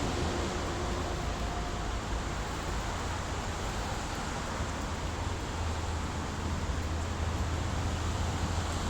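Steady rushing hiss of water spraying for a rain bath, with a low rumble underneath.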